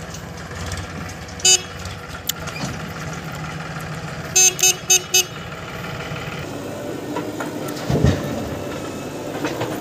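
A vehicle horn sounds once with a short beep, then four quick beeps about three seconds later, over diesel tractor and backhoe-loader engines running. A low thump comes near the end.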